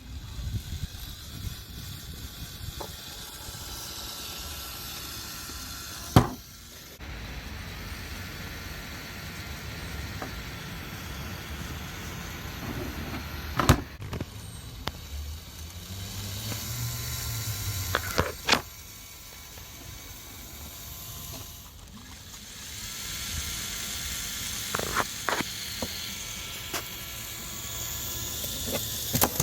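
Small electric motor and plastic gearing of a LEGO Technic vehicle running steadily, with a handful of sharp clicks or knocks spread through.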